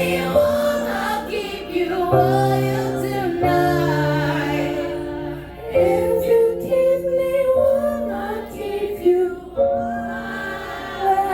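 A woman singing live over piano chords, each chord held for a second or two with a low bass note beneath it.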